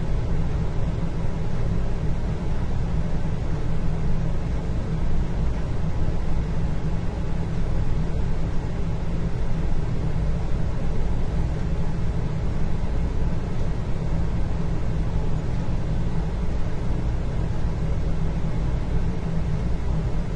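Steady indoor room ambience: a constant low rumble with a faint hum and an even hiss above it, unchanging throughout.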